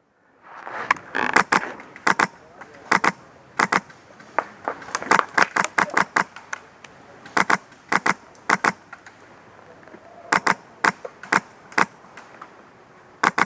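Airsoft guns firing, each shot a sharp pop, many in quick pairs, at irregular gaps of about half a second to a second. The shots start about half a second in.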